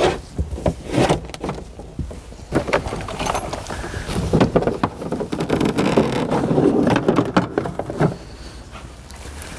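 Irregular rustling and scraping with many short clicks as a cable is pulled free by hand and gathered up, busiest from about four to seven and a half seconds in.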